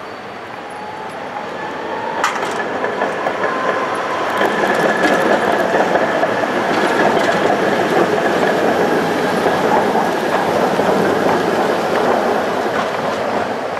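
Tatra trams passing close: steel wheels rolling and clattering over the rails, with a high steady squeal from about one second in until about ten seconds. A sharp crack comes about two seconds in.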